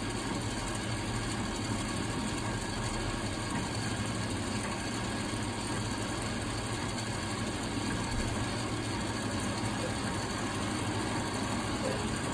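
Ice maker running: its drive turns the shaft of white plastic paddle wheels, with a steady low mechanical hum.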